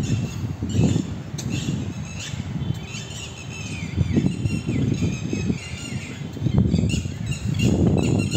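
Birds chirping and calling, with short gliding calls. Under them, wind buffets the microphone in an irregular low rumble, which is louder near the end.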